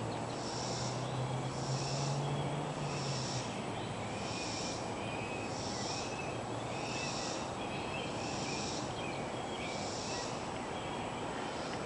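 Insects calling in a steady rhythm, about one high pulse a second, over constant background hiss. A low hum fades out about three seconds in.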